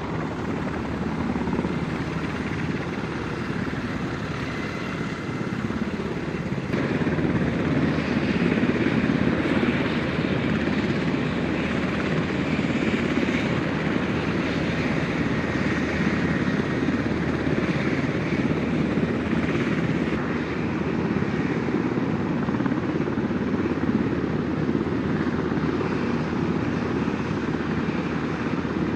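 CH-47 Chinook tandem-rotor helicopters running: a steady, dense rush of rotor and turbine noise. It steps up suddenly about seven seconds in, then holds steady.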